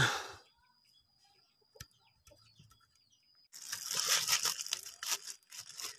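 Thin clear plastic bag crinkling and rustling as hands unwrap it. The crinkling starts about three and a half seconds in and runs in quick, dense crackles.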